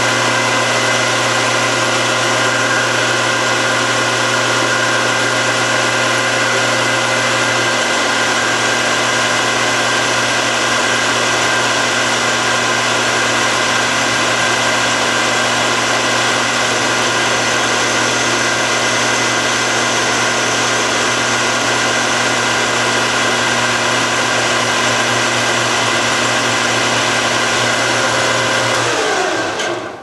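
Metal lathe running steadily with a loud motor and gear whine while a facing pass is cut on the end of a turned knob stem. Near the end it is switched off and the whine falls in pitch as the spindle spins down.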